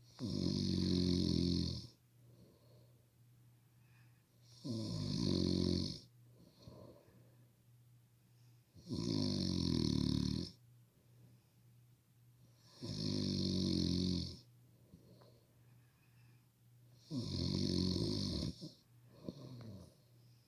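Heavy snoring: five loud snores about four seconds apart, each lasting a second and a half to two seconds, with faint breathing between them.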